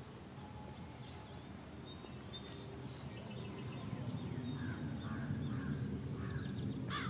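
Birds calling outdoors over a steady low background noise: a few high chirps in the middle, then a run of harsh crow caws from about two-thirds of the way through, the loudest right at the end.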